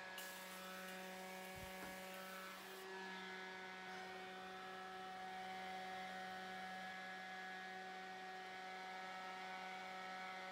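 Small handheld electric fan running with a steady motor hum and whir. For the first three seconds or so, Morphe setting spray hisses as it is misted onto the face, then stops.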